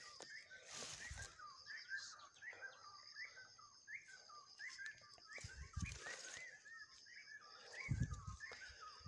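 Small birds chirping over and over in quick short notes, over a steady high thin tone. Leaves and plant stems rustle with low handling thumps about a second in, near six seconds and about eight seconds in, the last the loudest, as the hands push through the undergrowth.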